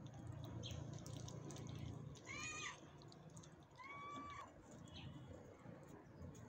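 A cat mewing twice: two short, high calls about a second and a half apart, the first slightly bending in pitch, the second held level.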